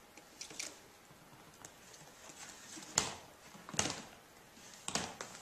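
A latex toy pig being dragged across a hardwood floor by a ferret, making scattered scrapes and knocks. The loudest come about three seconds in and again just before four seconds, with a few more near the end.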